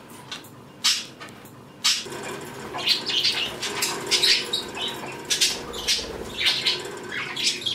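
Budgies chattering: many short high chirps and warbles, busier after the first couple of seconds. Two sharp clicks come in the first two seconds.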